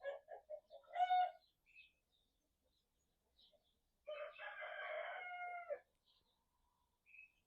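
A rooster crowing: a quick run of short calls with a brief crow about a second in, then one long, full crow about four seconds in. Small birds chirp faintly.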